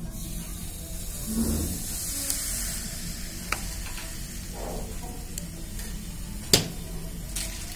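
Liquid nitrogen poured into a plastic cup of frozen iced-tea cubes, sizzling and hissing as it boils off. A sharp click about six and a half seconds in.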